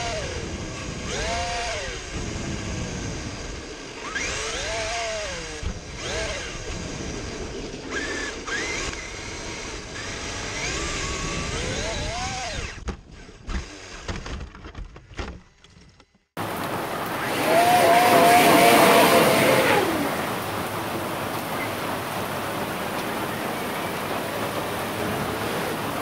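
Electric drive of an 8S Traxxas X-MAXX RC truck whining up and down in pitch as it is throttled on and off, in spurts a couple of seconds apart. After a cut about sixteen seconds in, a steady hiss takes over, with one louder stretch of rising and falling whine lasting about three seconds.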